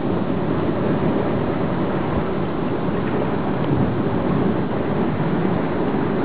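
Steady, deep rushing of sea water heard underwater in a rock pool, with the wash of surf picked up through the camera's waterproof housing.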